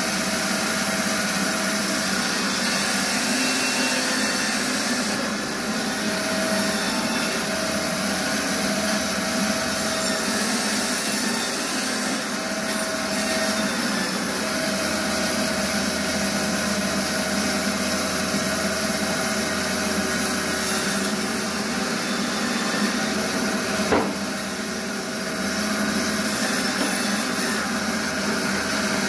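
Ton Öz 120 meat and bone band saw running steadily, its blade cutting through bone-in meat as pieces are pushed through. A single sharp knock near the end.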